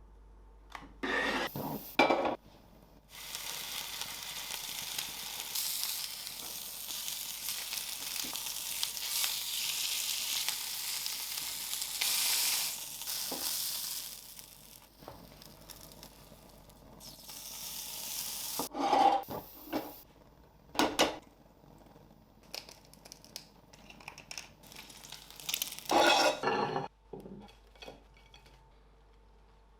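Food frying in hot oil, a steady sizzle that lasts about ten seconds and then fades. Short, sharp knocks of utensils or a pan come just before it and several more times afterwards.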